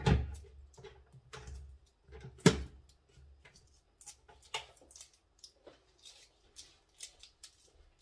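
Kitchen counter handling sounds: two sharp knocks, the louder about two and a half seconds in, then a run of small clicks and crackles as a boiled egg's shell is peeled by hand.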